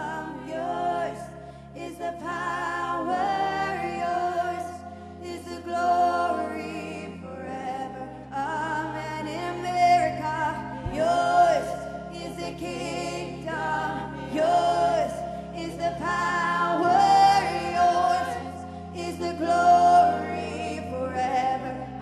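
Women's voices singing a slow worship song through a PA, long notes held with vibrato, over held keyboard chords that change every few seconds.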